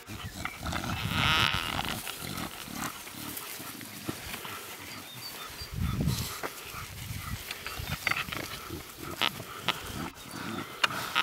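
Staffordshire bull terrier puppies and adult dogs playing in grass, with low growling noises throughout. A louder noise comes about a second in, and a few sharp clicks come near the end.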